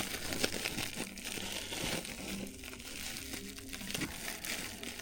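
Crinkling and crumpling of flexible ductwork and its insulation being pulled and handled during demolition, a continuous crackly rustle with small ticks.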